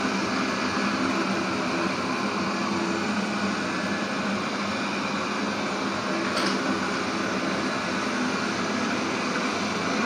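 360 S7 robot vacuum cleaner running, a steady whir of its suction motor and brushes as it cleans the floor.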